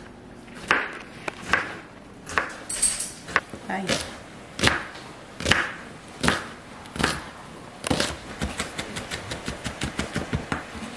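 Chef's knife dicing an onion on a wooden cutting board: single chops about a second apart, then a quick run of about five chops a second for the last few seconds.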